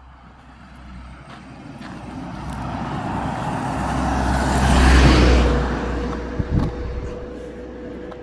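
A flatbed light truck approaching and driving past, its engine and tyre noise swelling to a peak about five seconds in and then fading away. Two brief thumps come about a second after it passes.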